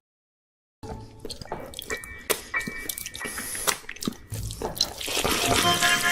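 Wet dripping and clicking sounds, irregular and close, with a layer of steady tones joining about five seconds in.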